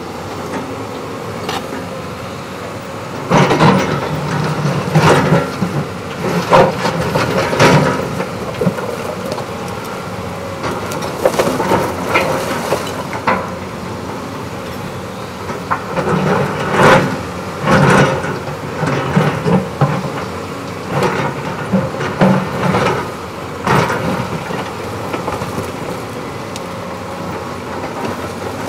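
Cat 329E excavator working a pile of concrete demolition rubble: its diesel engine runs steadily under repeated loud knocks and clatter of the steel bucket and broken concrete slabs, coming in clusters with short lulls between.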